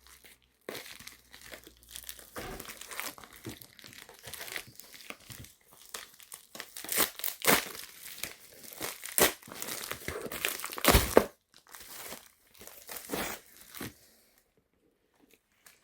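Packaging being torn open and crinkled by hand: irregular rustling and crackling, with several loud sharp rips in the middle, then quiet near the end.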